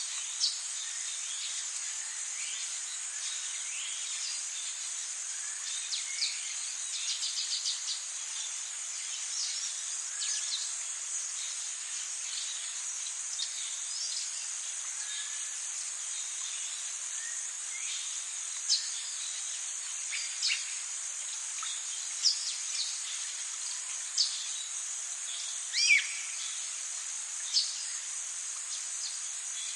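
Tropical forest ambience: a steady high chorus of insects buzzing and trilling, with many short bird calls over it. These are quick downward chirps and whistles, a rapid run of notes about seven seconds in, and louder single calls through the second half.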